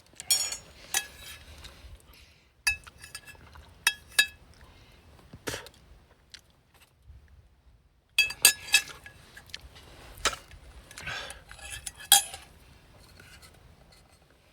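Eating utensils clinking against a dish during a meal: scattered sharp clinks with a short ring, in two groups separated by a quiet gap of about two seconds near the middle.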